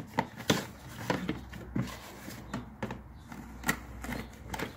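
Hands rummaging through boxed accessories in a plastic bucket: an irregular string of light knocks, clicks and rustles as cardboard boxes and plastic parts are shifted, the sharpest about half a second in.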